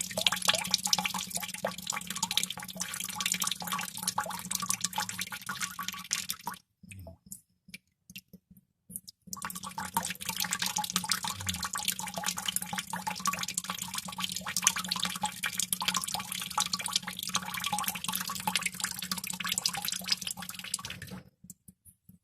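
Many water droplets dripping rapidly into water, a dense run of small splashes over a steady low hum. About seven seconds in it thins to a few scattered drops for two seconds, then the dense dripping resumes. Near the end it stops, leaving a few last drops.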